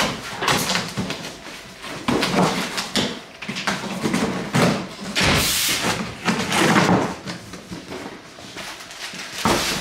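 Cardboard box being handled: lifted, carried and set down with thumps, its cardboard flaps scraping and rustling. The loudest is a rustling scrape about halfway through.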